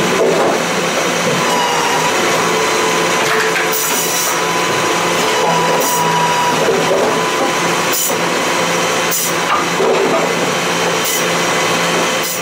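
Power saw running steadily at high speed while cutting firewood, with a brief sharper sound every second or two.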